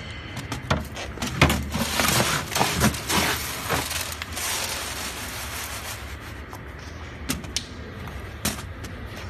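Gorgon fruit (foxnut) seeds sliding off a plastic tray into a plastic crate: a dense rattling hiss of many small clicks for about four seconds, then a few scattered clicks near the end.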